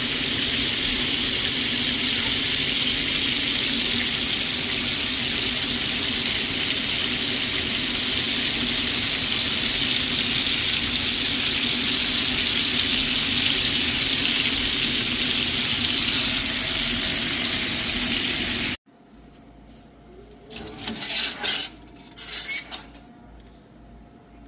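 Bacon-wrapped chicken breasts sizzling steadily in a frying pan. After an abrupt cut near the end, the sound drops to a much quieter stretch with two short noises.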